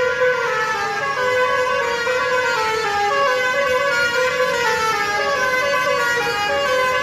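Musical horn of a Sri Lankan private bus playing a tune: a continuous run of held notes that step up and down in pitch, changing every fraction of a second.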